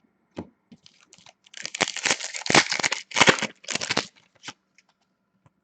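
A foil trading-card pack wrapper being torn open and crinkled by hand, in a run of rustling tears over about two and a half seconds, with a few light ticks before and after.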